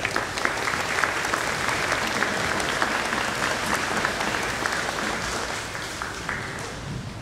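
Audience applauding, starting at once and thinning out near the end.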